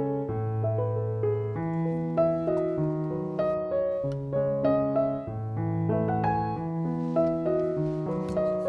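Background piano music: a gentle melody of held notes over a slow-moving bass line.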